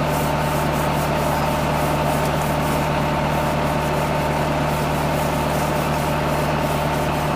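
Tubewell pump running steadily with a constant hum, and water rushing from its outlet pipe into the concrete tank.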